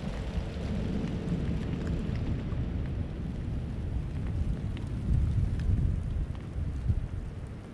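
Wind buffeting the microphone: a low, gusty rumble that swells and eases, stronger toward the end.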